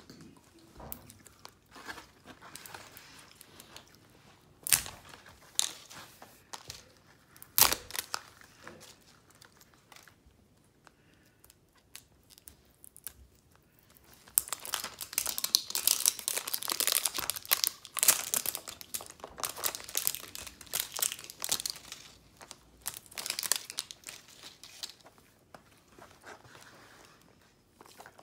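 Wrapping on a 5 Surprise capsule ball crinkling and tearing as it is peeled open by hand. Scattered sharp crackles at first, then a long stretch of steady crinkling about halfway through that tails off near the end.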